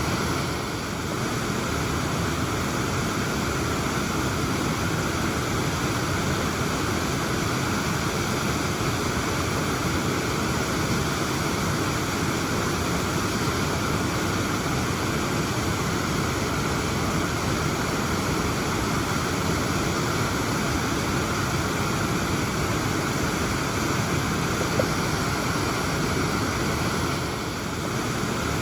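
Waterfall's steady rush of falling water, an even wash of noise that dips slightly for a moment just after the start and again near the end.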